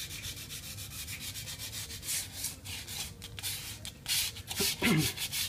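Dried patching plaster on a wall being rubbed smooth by hand, heard as repeated scratchy sanding strokes: quick short rubs at first, then a few longer strokes. A brief low falling tone comes near the end.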